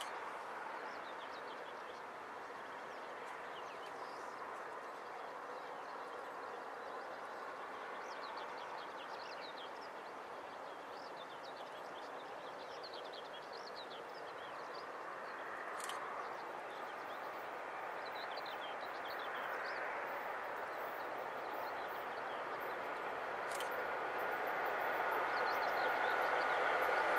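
Small birds chirping over a steady distant rumble that slowly grows louder as a ChS7 electric locomotive hauling a passenger train approaches. A steady whine builds in the last several seconds as it nears.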